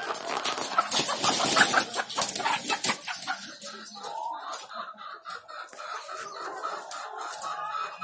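Many caged laying hens clucking together. A burst of rapid clicking and rattling over the first three seconds is the loudest part, after which the clucking carries on more evenly.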